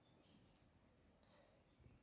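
Near silence: room tone, with one faint short click about half a second in.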